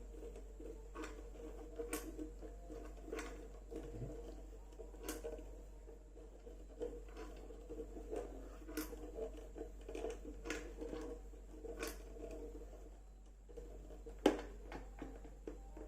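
Irregular small clicks and taps of the metal detector's cable and plastic parts being handled, with the cable being wound around the shaft, over a faint steady hum; one louder knock about 14 seconds in.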